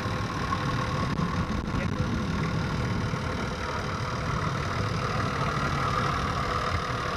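A four-wheel-drive's engine idling steadily, a low even rumble with no revving.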